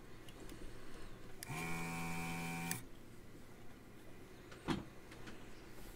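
Desoldering gun's vacuum pump running for just over a second, sucking molten solder off a joint: a steady hum that starts and stops suddenly, about a second and a half in. A single sharp click follows a few seconds later.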